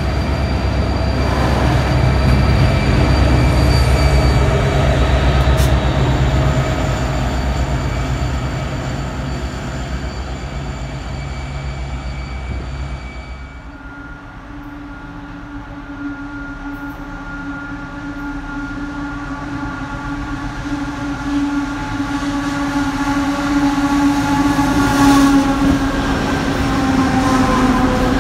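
Loaded coal hopper wagons rolling past with a loud low rumble and thin, steady high wheel squeals. About 13 seconds in, this cuts to a diesel freight locomotive approaching, its engine drone growing steadily louder.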